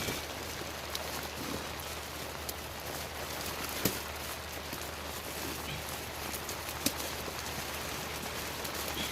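Flexible air duct being worked onto an 8-inch connector: a steady crinkly rustle with scattered small clicks and two sharper knocks, about four and seven seconds in.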